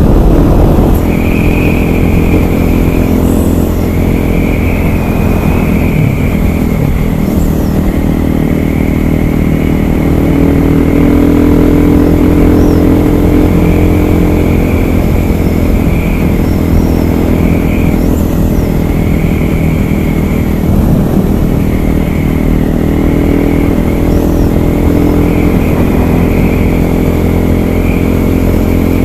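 KTM 500 EXC supermoto's single-cylinder four-stroke engine running steadily under way, its pitch rising and falling with the throttle.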